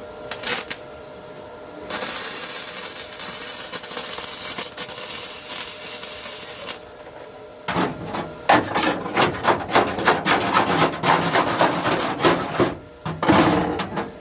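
An abrasive hand tool being rubbed over bodywork. First comes a steady rasping hiss for about five seconds, then quick back-and-forth scraping strokes, about three a second, ending with a short final burst.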